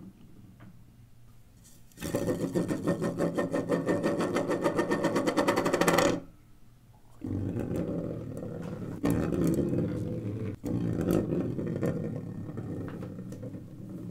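Small wheel built from white LEGO plates rolling across a hard tabletop, its ridged rim of plate edges clattering in a fast, even clicking for about four seconds before it cuts off. After a short gap it goes on as a lower rolling rumble with scattered clicks.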